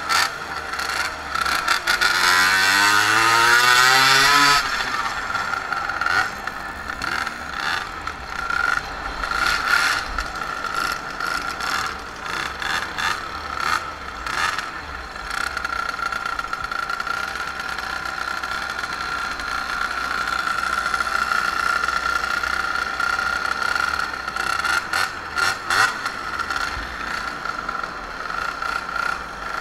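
Small two-stroke moped engine revving up, its pitch rising from about two seconds in, then running steadily at speed, with short rattles and knocks now and then.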